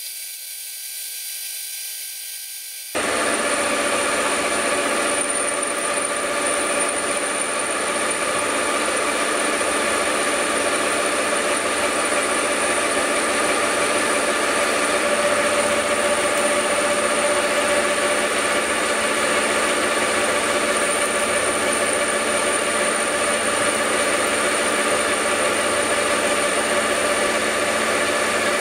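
Metal lathe running as it turns down a steel bar with a carbide-insert tool: a steady machine whine with a cutting hiss. It is quieter at first, then jumps up suddenly about three seconds in and stays level.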